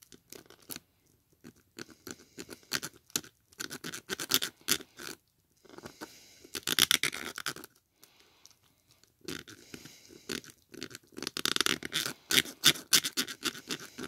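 Fingers pressing and rubbing on a calculator's circuit board and plastic case: irregular scratching and clicks, in two busier spells about six and eleven seconds in. It is handling along the board's edge, where a loose display connection is being pressed back into contact.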